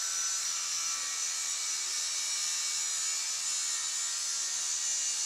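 Makita angle grinder with an abrasive cut-off disc cutting through a steel pipe, a steady high grinding whine with hiss.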